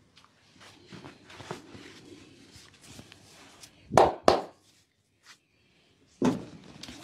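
Hands massaging a person's head, neck and shoulders: soft rubbing and light taps, then two sharp smacks in quick succession about four seconds in and one more near the end.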